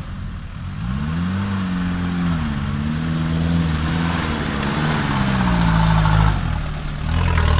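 Off-road 4x4's engine revving hard under load as it climbs a steep muddy bank, its pitch rising about a second in and then swinging up and down. It gets louder as the vehicle comes close, dips briefly, and picks up again near the end.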